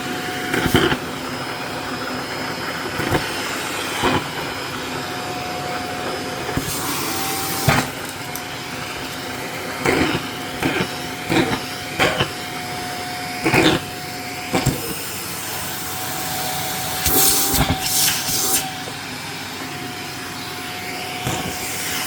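Shark vacuum cleaner running with a steady whine while it sucks up packing peanuts, which clatter through the nozzle as sharp clicks at irregular intervals. There are two longer stretches of louder hiss, about a third of the way in and again past the middle.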